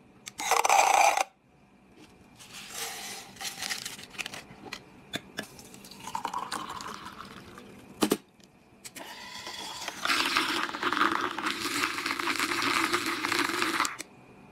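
Self-stirring magnetic mug with a stainless-steel cup: clinks and rattles against the metal cup, a sharp click about eight seconds in, then the base motor whirs steadily with the liquid swirling for the last four seconds or so.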